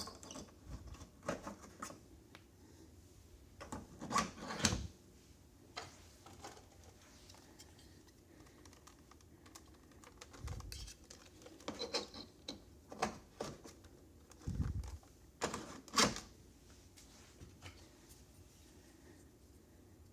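Irregular clicks and light knocks of small hard objects being handled, coming in clusters with pauses between.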